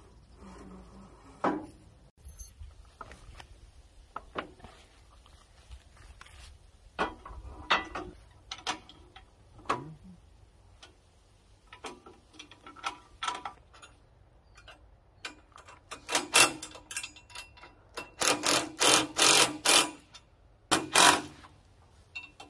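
Scattered clinks and knocks of metal parts and tools as a bandsaw mill's steel frame is fitted and bolted together, with a run of louder, quick clacks in the last few seconds.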